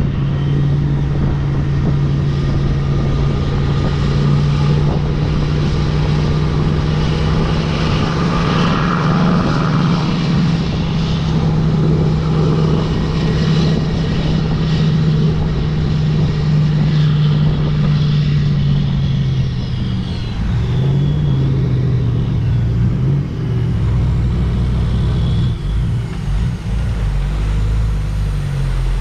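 Diesel engine of a Peterbilt semi-truck pulling a loaded lowboy trailer, heard from the load behind the cab. The engine holds a steady drone for most of the time, then wavers and drops about twenty seconds in, with a deeper rumble near the end.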